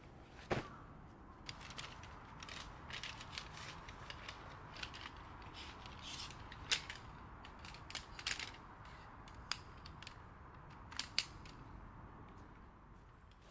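A soft thud as a bundled tent lands on the grass, then a scattered run of light clicks and clinks as tent pegs and poles are pulled from a pack and knock together.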